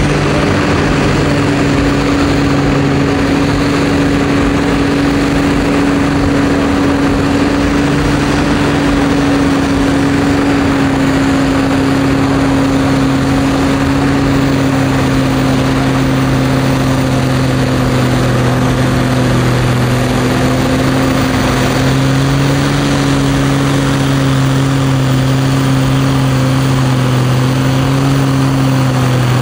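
Pulling tractor's engine running flat out under load as it drags the sled down the track, a loud steady drone whose pitch sags slightly as the run goes on.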